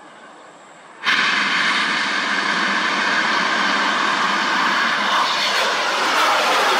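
Bang fai saen, a large Thai homemade black-powder rocket, ignites about a second in with a sudden loud rushing roar that keeps going as it climbs from the launch tower. Near the end a tone falls in pitch as the rocket flies away.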